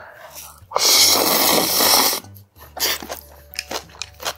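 A loud slurp of thin somen noodles coated in spicy sauce, lasting about a second and a half, followed by wet chewing clicks and smacks.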